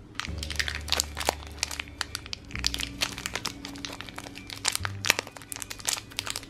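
A thin plastic wrapper crinkling and crackling as fingers pull it open around a small toy figure, over background music.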